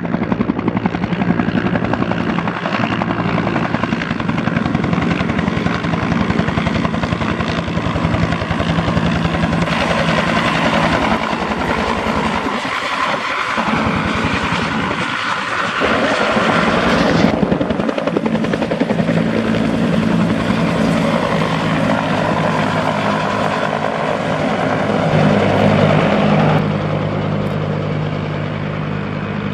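Bell 205 helicopter (civilian UH-1H Huey), flying past at low height after takeoff: its two-blade main rotor beats steadily over the running turbine engine. The sound drops off near the end as it flies away.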